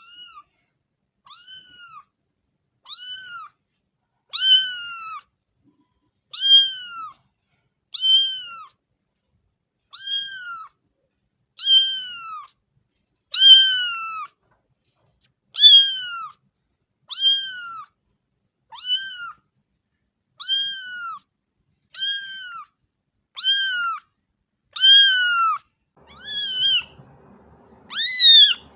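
A domestic cat meowing over and over, short meows each rising then falling in pitch, about one every one and a half seconds at a very even pace. A faint low background noise comes in near the end.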